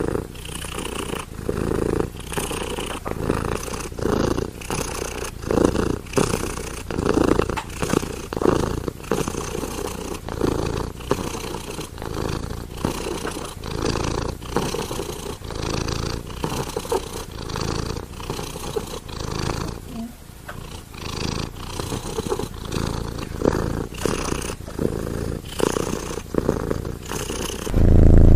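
Domestic cat purring steadily, the purr swelling and fading in an even rhythm with its breaths. A louder low sound comes in right at the end.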